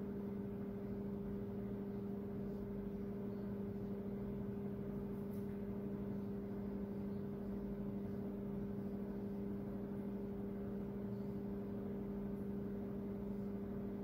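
Steady electrical-sounding hum with two constant tones, low and an octave above, over room noise; a few faint, brief scratches of a marker on a whiteboard come through now and then.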